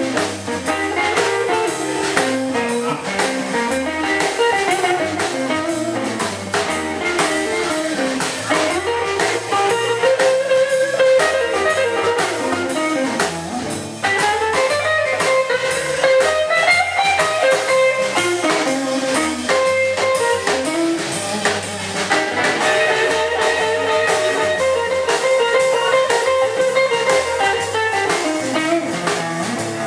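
Live blues band playing: a saxophone holds and bends long notes over hollow-body electric guitar, electric bass and a drum kit keeping a steady beat.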